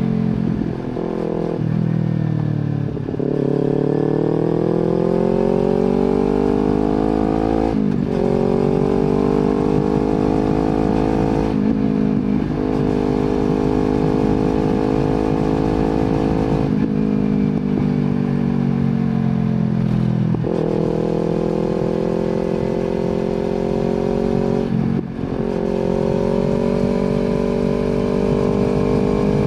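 Kawasaki Z250 parallel-twin engine breathing through an aftermarket slip-on exhaust, pulling up through the gears with its pitch rising and dropping at each shift, then holding a steady cruise with a brief dip of the throttle near the end.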